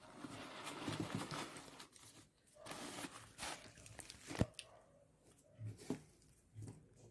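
Hands handling a new sneaker: faint rustling and rubbing of the shoe's fabric and padded collar, in two stretches, with one sharp click about four seconds in and a few soft taps after.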